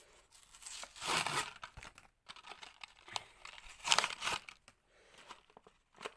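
Hot Wheels blister package being torn open by hand: the plastic blister crinkles and the card tears, with two louder bursts about a second in and around four seconds in.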